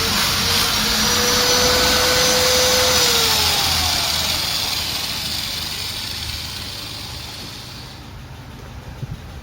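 A machine running loud with a rushing noise and a steady whine that drops in pitch about three seconds in, then fades away over the next several seconds.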